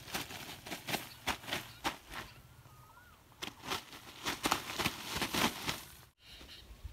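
Irregular crackling rustle, like leaves and grass being brushed, in two spells with a short pause between, stopping abruptly near the end.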